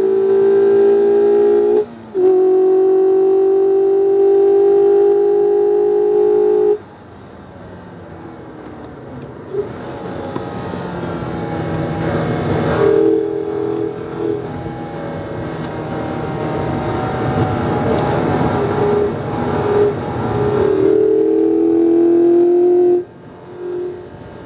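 2019 Mazda MX-5 RF's 2.0-litre four-cylinder engine at full throttle, heard from inside the cabin: a loud, steady, high engine note with a brief dip about two seconds in. A third of the way through the throttle closes suddenly, then the engine and road noise build again over the next fifteen seconds, rising in pitch, before it cuts back sharply near the end.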